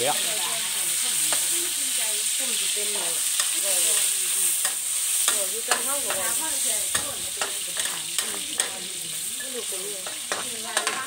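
Minced pork and garlic sizzling in oil in a wok, stirred and scraped with a metal spatula, with repeated sharp clinks of the spatula against the wok.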